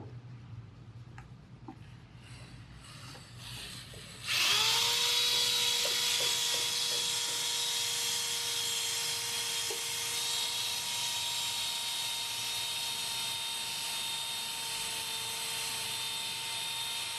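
Corded electric drill spinning a homemade Kentucky flap sander, an abrasive strip wound on a slotted rod, used to sand a part. It starts about four seconds in, comes up to speed at once and then runs at a steady whine.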